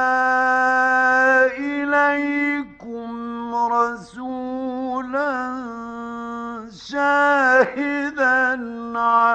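A man reciting the Quran in the melodic mujawwad style. He holds one long note, then moves on in shorter ornamented phrases whose pitch wavers.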